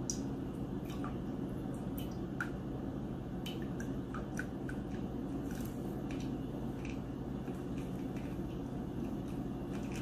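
Steam espresso machine brewing: coffee trickling and dripping into a glass mug as scattered small drips and splutters, over a steady low hum from the machine.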